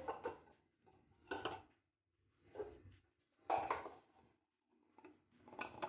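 Kitchen spice containers and a measuring spoon being handled: five short, faint knocks and clinks about a second apart.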